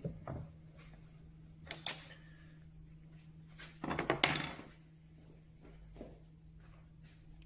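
Wood and hand tools being picked up and set down on a wooden workbench: a few sharp knocks and clatters, loudest in a short cluster about four seconds in, over a faint steady low hum.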